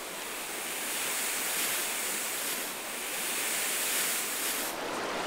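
Fine dry sand pouring through cupped hands onto sand: a steady soft, high hiss that stops shortly before the end.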